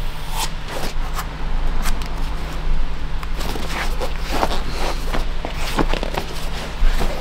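A stiff hand brush scrubbing over a leather hiking boot in quick, irregular strokes, over a steady low hum.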